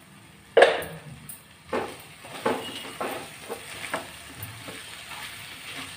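A spatula stirring potatoes and spices in a kadai: a sharp scrape against the pan about half a second in, the loudest, then lighter scraping strokes about every half second.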